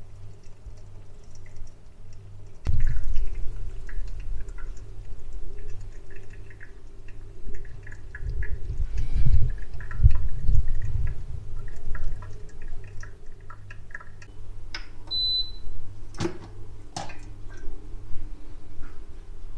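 De'Longhi Clessidra drip coffee maker brewing: coffee dripping into the carafe over a low running noise from the machine that comes in about three seconds in. A short high beep sounds about 15 seconds in, the alert this machine gives when brewing finishes, followed by a few sharp clicks.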